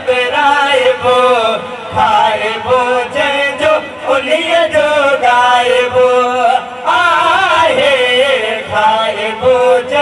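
Two men singing a Sindhi naat into microphones, long held notes with wavering, ornamented pitch.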